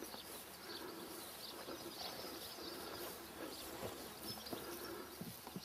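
Birds chirping repeatedly in short calls over faint, steady outdoor background noise, with a few small clicks near the end.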